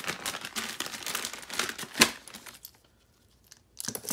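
Clear plastic bag crinkling and rustling as it is handled, with one sharp click about two seconds in. The bag holds rope ratchet hangers. The rustling stops for about a second, then starts again near the end.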